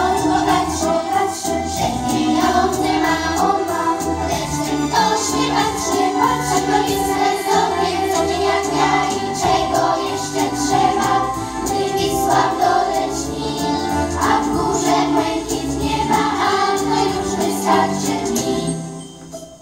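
Primary-school children's choir singing together in unison and parts, the singing stopping shortly before the end as the song finishes.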